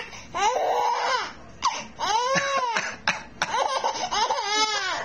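A baby laughing in a squeal that turns into drawn-out wailing cries, each rising and falling in pitch, with a few short coughs in between.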